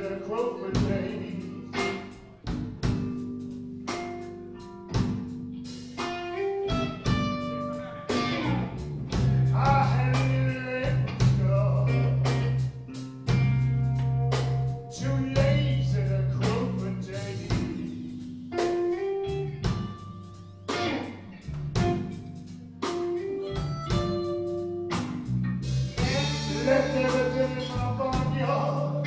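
Live electric blues band playing: electric guitar, bass and drum kit, with held, wailing lead notes from a harmonica cupped against the vocal microphone.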